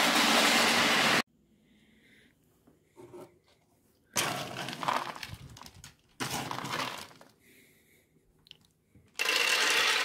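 Dry dog kibble poured from a bag into a plastic storage bin, a dense rattle that cuts off suddenly about a second in. After a pause, a plastic scoop digs through kibble in the bin in two short bouts. Near the end, kibble is poured rattling into a plastic slow-feeder dog bowl.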